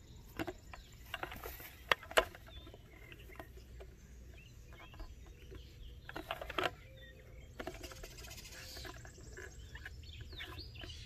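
Light clicks and knocks from handling a plastic food-grade bucket and fitting a water collection cup onto its drinker nipple, loudest about two seconds in and again around six seconds in. Faint bird chirps are heard behind it.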